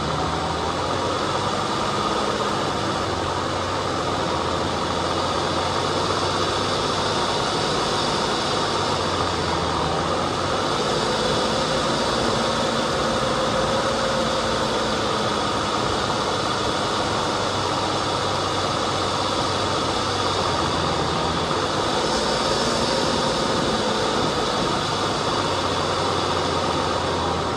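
Off-road vehicle engine running steadily as it drives a dirt trail, its note rising and falling gently a few times, over a constant wash of driving noise.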